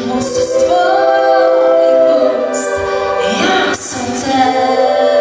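Live band music: voices hold long sung notes over accordion, acoustic guitar and drums, with brief hissing bursts that sound like cymbal or sung 's' sounds.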